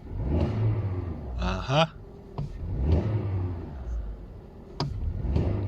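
Audi A2's 1.4 litre petrol four-cylinder engine, stone cold, revved up and falling back about three times. It takes the revs cleanly now that a new battery has replaced one with a dead cell, which had made it misfire when cold.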